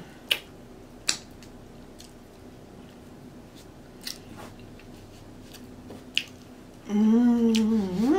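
Close-miked eating of saucy nachos: a few sharp wet mouth clicks and smacks while chewing and licking fingers. Near the end comes a long hummed "mmm" of enjoyment, the loudest sound.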